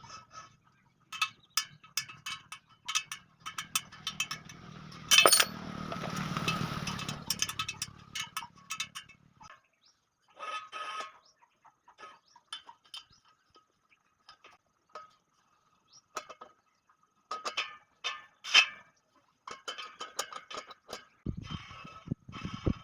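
Metal spokes clinking and tapping against a motorcycle rim and hub while a spoke wheel is laced and tightened, with a light ringing after the taps. A louder knock comes about five seconds in.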